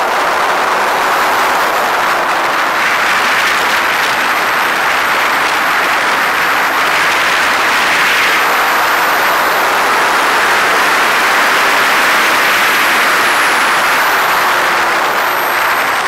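Ducati 848's L-twin engine running hard at speed, heard under a steady rush of wind noise. The engine note rises and falls faintly as the revs change.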